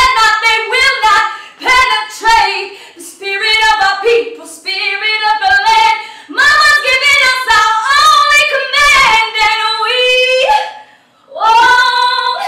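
A woman singing solo and unaccompanied, in sustained phrases with short breaks between them. Her voice drops out briefly about eleven seconds in and then comes back.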